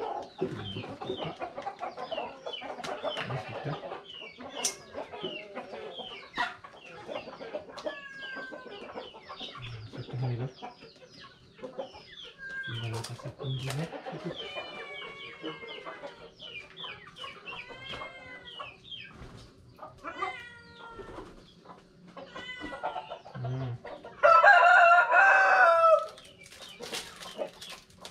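Domestic chickens clucking repeatedly in short calls. Near the end a rooster crows loudly for about two seconds. A few dull knocks come in between.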